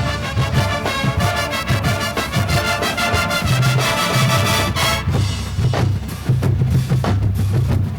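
Marching band playing: brass and winds hold chords over drums, then about five seconds in the horns drop out and the percussion plays on alone with sharp strikes and low bass-drum notes.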